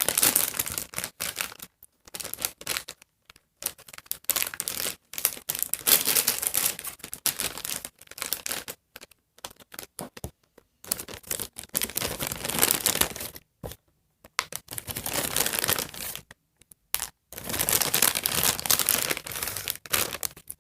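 Plastic packaging being torn open and crinkled by hand in irregular bursts with brief pauses.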